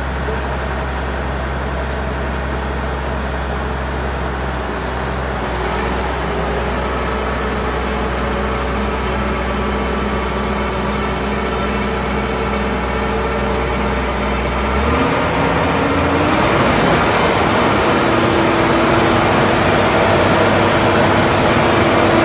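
Diamond core drilling rig running on its Cummins 6CTAA six-cylinder diesel and hydraulic drive, with a steady hum and a thin high whine. About fifteen seconds in, the sound changes: the low hum drops away, a tone glides upward, and the machine gets louder.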